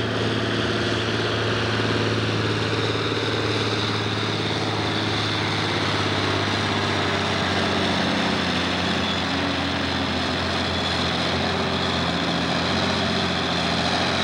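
Farm Stock class John Deere tractor's diesel engine running at full throttle under heavy load, pulling a weight-transfer sled. The engine sound is loud and steady.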